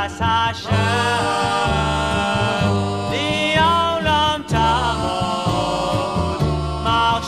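Group of male voices singing a Jewish religious song over instrumental backing with a steady bass line.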